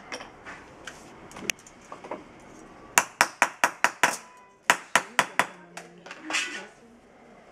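Hammer tapping on copper: quick runs of sharp metallic taps, about five a second, coming in two bursts about three and five seconds in.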